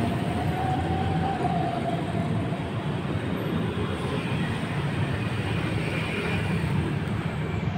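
Steady low mechanical rumble without breaks or distinct knocks, with a faint steady whine near the start.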